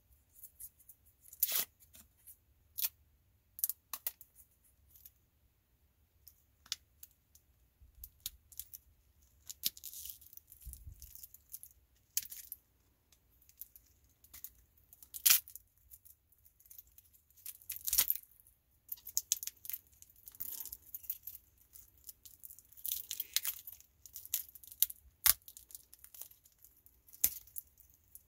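Protective plastic stickers being peeled off a stainless steel watch bracelet and case: short tearing and crinkling rustles broken by scattered sharp clicks as the metal bracelet is handled.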